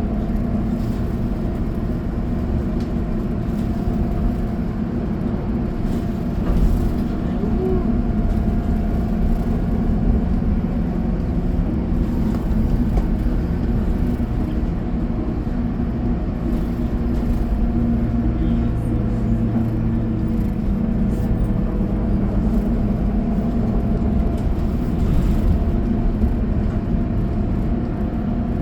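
City bus driving along the road, heard from inside the passenger cabin: steady engine and drivetrain hum over tyre and road noise, with a couple of louder bumps.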